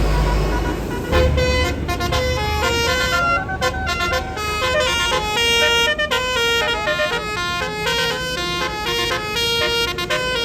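Tour bus's 'telolet' Basuri multi-tone horn playing a quick melody of short stepped notes, starting about a second in, over the bus's low engine rumble.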